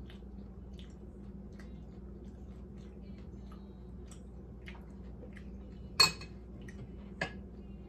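Small utensil-on-dish clicks while avocado is put onto mini tacos, then a sharp ringing clink about six seconds in and a lighter one about a second later.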